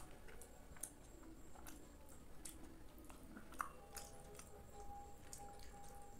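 Faint, wet chewing and squishing of soft kheer rice pudding, with soft clicks from a metal spoon scooping in the bowl and one sharper click a little past halfway.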